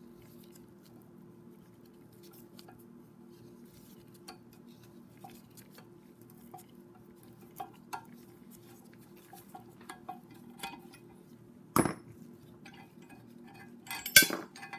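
Small metallic ticks and clinks from a valve spring compressor and valve keepers on an aluminium cylinder head, over a steady low hum. There is a sharp metal click about twelve seconds in and a louder cluster of clinks near the end.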